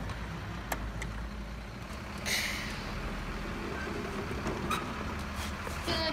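Steady low rumble of a truck engine sound effect, with a short hiss about two seconds in and a few light clicks.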